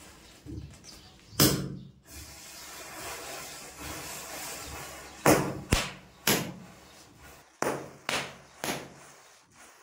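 About seven sharp pops from small firecrackers going off. The first comes alone, and the rest follow close together in the second half, over a low steady hiss.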